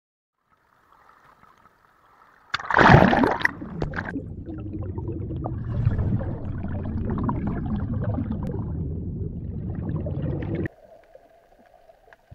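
A sudden splash about two and a half seconds in, then steady underwater bubbling and rushing water that cuts off abruptly near the end.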